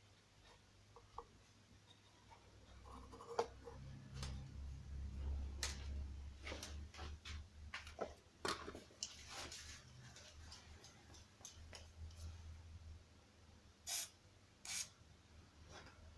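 Light clicks and knocks of tools and small parts being handled, scattered irregularly, over a low rumble through the middle, with two sharper knocks near the end.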